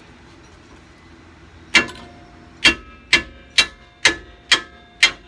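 Floor jack being pumped: seven sharp metallic clicks, each with a short ring, about two a second, starting nearly two seconds in. The jack is raising the rear suspension to line up the new strut's mounting bolt.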